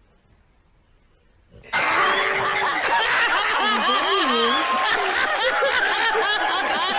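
Near silence for about a second and a half, then loud laughter from several people that starts suddenly and cuts off abruptly near the end.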